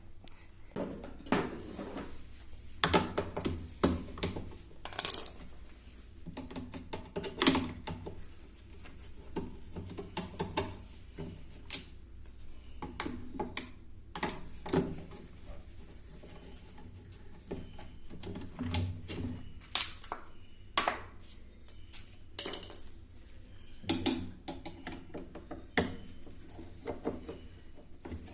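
Irregular clinks, clicks and knocks of tools and hard parts being handled during repair work on a top-load washing machine.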